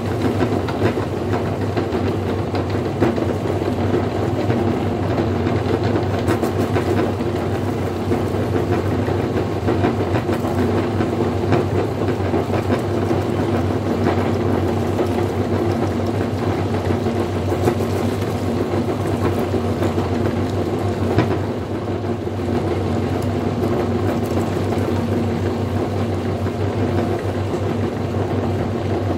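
Electric meat grinder running steadily with a constant motor hum while kale leaves are pushed through and minced, with scattered small clicks and crunches from the leaves and stems in the auger.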